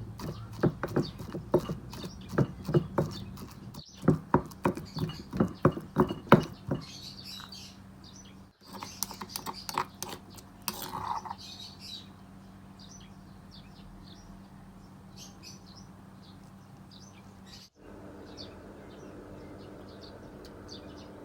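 Rhythmic knocking from kitchen work, about two to three strokes a second, through the first six seconds or so, then a few scattered clatters. After that, faint bird chirps over a low steady hum.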